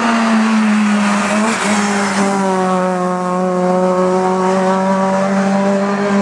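Hillclimb race car engine held at high, nearly constant revs, with a brief dip in pitch about a second and a half in. Rough tyre-scrub noise runs through the first couple of seconds.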